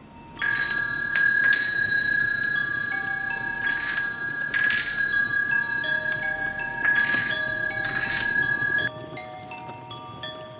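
Tibetan tingsha cymbals struck together several times. Each clash is followed by a long, high, steady ringing, with other bell tones at higher and lower pitches layered in. The main ringing stops abruptly near the end, leaving fainter bell tones.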